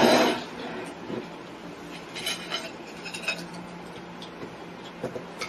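Knives and forks clinking and scraping on plates as chicken is cut, with a cluster of light clinks about two to three and a half seconds in. A short, louder noise comes right at the start.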